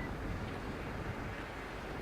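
Wind buffeting the microphone as a steady, uneven low rumble over a broad hiss of outdoor ambience.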